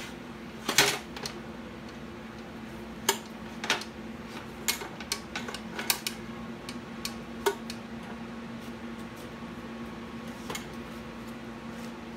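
Knocks and clatter of a cast-aluminium engine block and tools being shifted about on a metal workbench, a string of separate knocks with the loudest about a second in, over a steady low hum.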